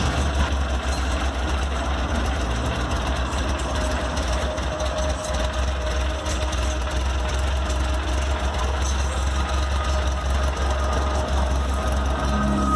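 Modified 2.3-litre air-cooled VW flat-four engine with twin Weber carburettors idling steadily, with a deep, uneven low rumble.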